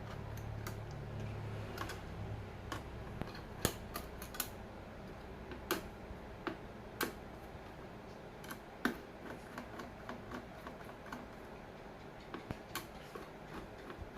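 Irregular light clicks and taps of hardware being handled, with a few sharper knocks, as parts of a server are worked on by hand. A low hum underneath dies away in the first few seconds.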